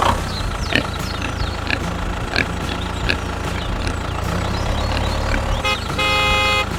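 An engine running steadily, with short sharp clicks every second or so. A horn-like tone sounds twice near the end, first briefly, then for about half a second.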